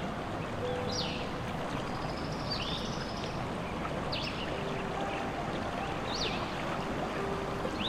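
Steady flowing-water sound of a stream with small birds chirping every second or so, under soft sustained music notes.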